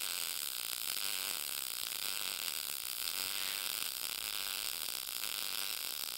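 Short-circuit MIG welding arc running steadily on 0.030 wire with 75/25 argon-CO2 gas at 19 volts. The wire feed is turned down to 220 inches a minute, which the welding machine flags as a little out of range for that voltage, so the arc draws only about 115 to 120 amps.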